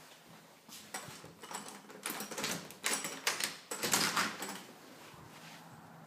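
A door being opened: a run of scraping and knocking noises over about three seconds, loudest near the middle, then dying away to a faint steady hiss.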